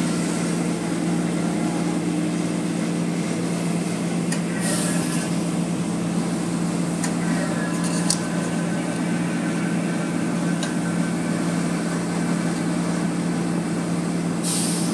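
Automatic car wash machinery running: a steady motor hum under a wash of water spraying and running over the glass, with two brief louder hisses of spray, about five seconds in and near the end.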